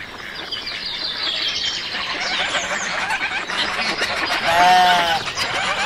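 Many birds chirping, with a single drawn-out farm-animal bleat about four and a half seconds in.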